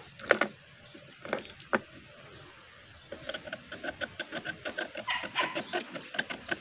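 A metal blade scraping the metal end cap of an 18650 lithium-ion cell in quick back-and-forth strokes, about six a second, starting about three seconds in. The terminal is being roughened so that solder will stick to it.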